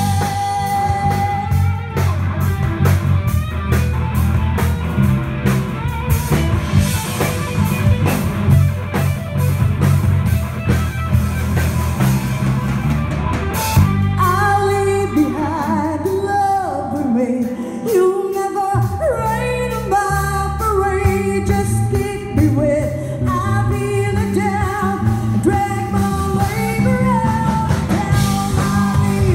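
Live rock band playing: drum kit, bass guitar and electric guitar, with a sliding lead melody rising above the band from about halfway.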